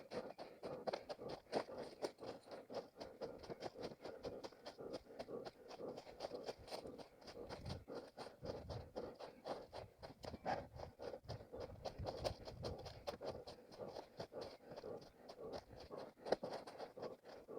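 An orienteer's footsteps running over forest floor, with dense, irregular crackling and rustling of leaf litter, twigs and undergrowth brushed on the way.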